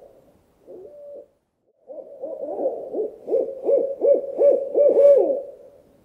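Owl hooting: a short hoot about a second in, then from about two seconds a quick run of overlapping hoots, many falling away in pitch at the end, fading out near the end.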